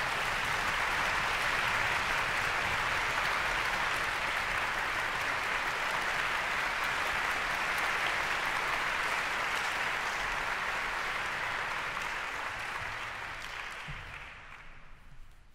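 Audience applauding steadily, the clapping dying away over the last two seconds or so.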